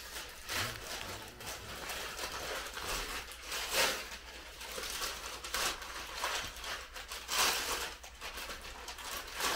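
Christmas wrapping paper rustling and crinkling as a gift is unwrapped by hand, with a few louder bursts of the paper being pulled and torn.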